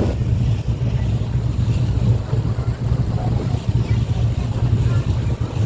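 A motorboat's engine running steadily with a low drone, with wind noise and water rushing past the hull.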